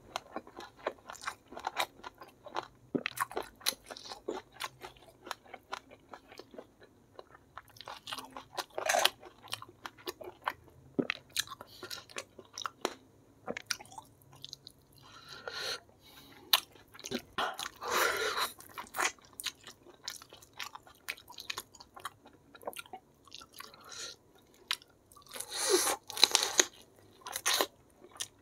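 Close-miked mouth sounds of eating chicken and rice by hand: steady wet chewing and lip smacks with crunchy bites. A few longer, louder wet noises come now and then.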